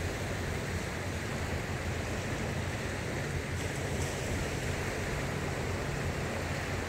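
Small waves breaking and washing up a flat sandy beach: a steady surf hiss, with a low wind rumble on the microphone.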